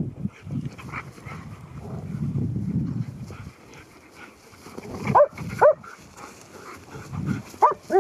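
Two dogs playing rough: low play-growling for the first few seconds, then sharp, high yelping barks, twice about five seconds in and twice more at the end.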